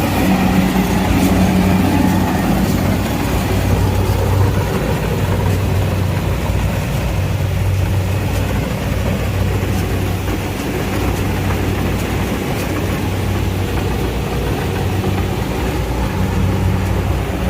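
Kubota tracked combine harvester's diesel engine running steadily, with a constant low hum.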